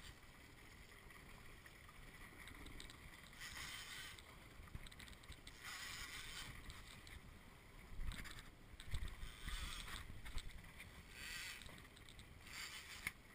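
Faint sea water washing against a small boat's hull in separate swishes every couple of seconds. A few low bumps come about two-thirds of the way through.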